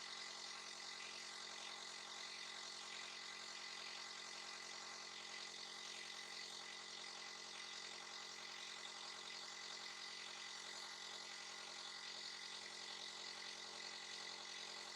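A breathing-aid machine's small electric motor running with a steady hum and a fixed high whine.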